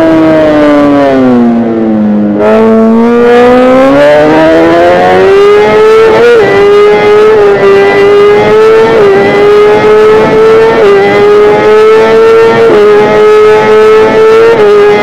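Kawasaki ZX-10R's inline-four engine at high revs under riding load. Its pitch falls for about two seconds as it slows down, then climbs back up and holds high, with brief dips every couple of seconds.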